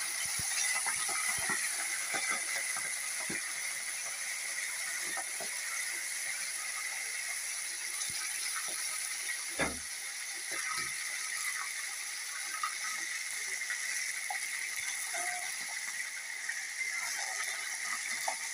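Whole fresh tilapia deep-frying in hot oil in a wok: a steady sizzle with constant small crackles and pops of spattering oil. One louder knock about halfway through.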